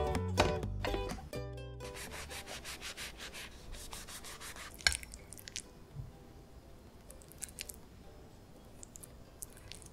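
Background music ends about two seconds in. Then comes a couple of seconds of fast, soft rasping as a soft bread roll is cut open, with a single click near five seconds. Faint light taps follow later as egg mayonnaise is spooned into the roll.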